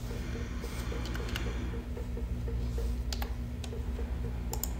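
A few scattered computer keyboard keystrokes and mouse clicks over a low steady hum.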